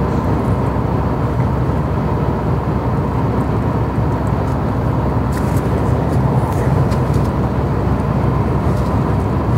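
Steady road and engine noise of a car driving uphill through a long road tunnel, heard from inside the cabin.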